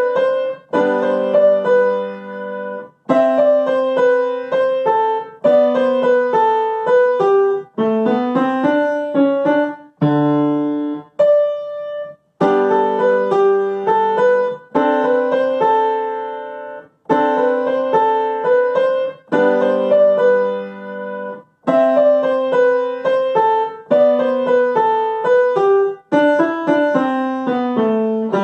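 Grand piano playing a short beginner piece in G major, in phrases of about two seconds separated by short breaks, with a slower passage of held notes about ten seconds in.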